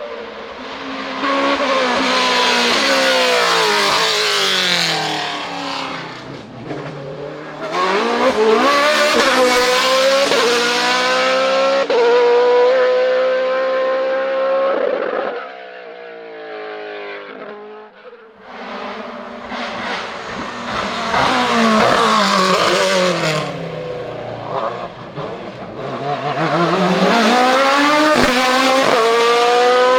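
Hillclimb race car engines at full throttle, rising in pitch through the gears and dropping back at each shift, swelling loud as the cars come past and easing off for a few seconds in the middle.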